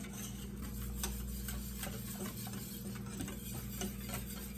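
Wire whisk beating pudding powder into milk in a metal saucepan, its wires ticking quickly and steadily against the pan as the powder is mixed in smooth.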